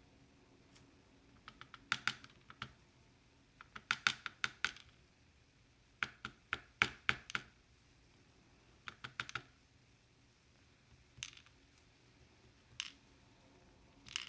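Small sharp metallic clicks and taps of a tool and lock parts being handled while a pin-tumbler lock is taken apart, coming in quick clusters of several clicks, then a few single clicks near the end.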